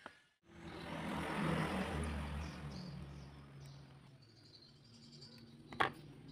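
A motor vehicle running in the background, its rumbling hum swelling and then fading over a few seconds, with one sharp click near the end.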